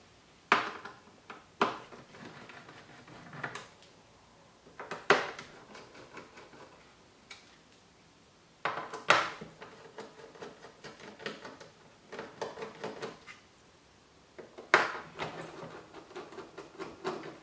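Intermittent sharp knocks and light rattling clatter of hand work on an all-in-one PC's back: the hinge screws being taken out with a Torx driver, and metal and plastic parts being handled and set down.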